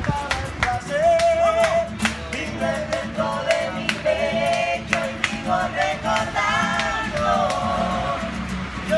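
A small live street band playing Latin music: a voice singing over guitar, with a bass line and a steady beat of sharp percussive strokes.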